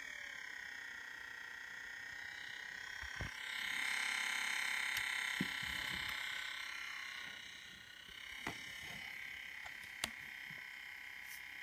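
A 2015 Apple MacBook Pro making an awful high-pitched whine with several tones at once. The pitch slides down at the start and steadies, then the whine swells louder for a few seconds and eases back, with a few sharp clicks. It is an abnormal noise from a two-week-old machine: a fault.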